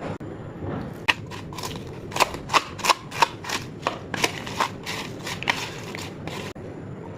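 A quick, irregular run of sharp clicks or pops, about three a second, that stops about six and a half seconds in.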